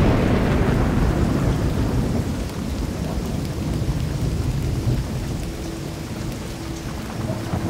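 Thunder rumbling and slowly dying away over steady heavy rain.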